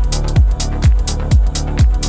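Electronic dance music with a steady kick drum, about two beats a second, and hi-hats.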